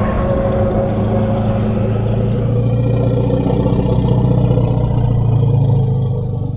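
Designed creature sound effect for the Sauroplacidus, a fictional dinosaur: one long, deep, steady growl.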